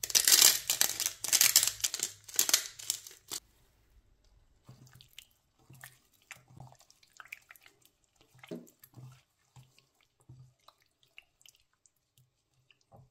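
A hand spice grinder grinding seasoning, a loud rapid dry crunching for about three and a half seconds. After a short pause come quiet wet squelches and small clicks as gloved hands work raw chicken strips through a thick buttermilk marinade in a glass bowl.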